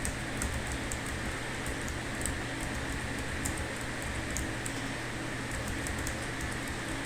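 Typing on a computer keyboard: light, irregular key clicks, several a second, over a steady low hum.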